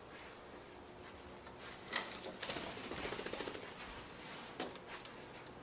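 A small bird's wings fluttering rapidly in one short burst about two and a half seconds in, with a few scattered taps and clicks around it.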